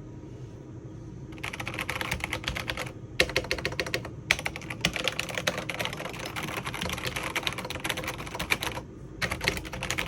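Fast typing on a darkFlash GD100 mechanical keyboard: dense runs of key clicks begin about a second and a half in, with a few short breaks, over a steady low hum.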